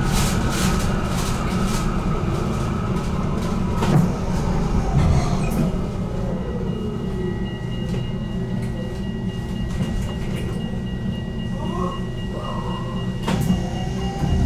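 GTL8 tram running on its rails, heard from on board: a steady rumble of wheels on track with sharp clicks over rail joints, and a falling motor whine near the middle.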